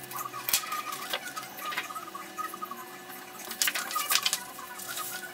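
Sheet of cardstock being handled and folded on a cutting mat: several sharp taps and paper rustles among small chirping squeaks.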